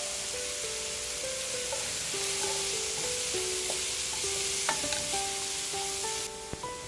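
Bacon, onion, garlic and frozen mushrooms sizzling in a frying pan, a steady hiss that stops near the end, with a few light clicks. Gentle background music plays a melody underneath.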